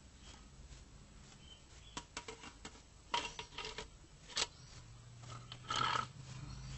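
Irregular clicks and clinks of hand tools on metal during work on a car's clutch pressure plate bolts, with a short louder burst near the end.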